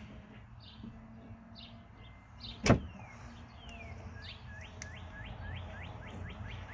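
One sharp snap about two and a half seconds in, as pliers cut through the antenna's wire. After it, a bird sings a run of quick rising whistled notes, about four a second.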